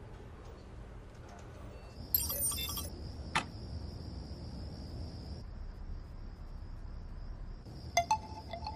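A bright, glittering chime sound effect about two seconds in and a single sharp click just after, over a steady high insect trill like crickets at night; near the end, a few quick clinks with a short ringing ping.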